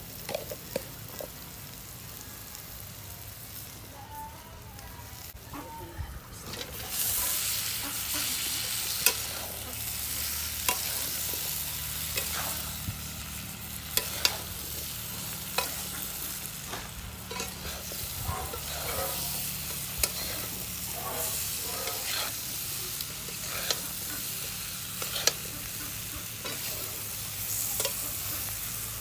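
Food sizzling in hot oil in a large iron wok, jumping much louder about seven seconds in as raw chicken pieces go into the onion and spice masala. A metal spatula scrapes and knocks against the pan every second or two as the mix is stirred.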